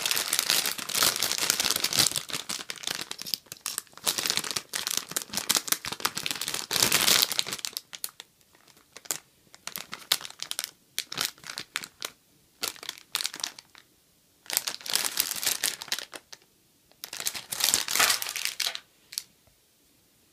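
Thin clear plastic bag crinkling as it is handled. The crinkling is steady for about the first seven seconds, then comes in short bursts with quiet pauses between them.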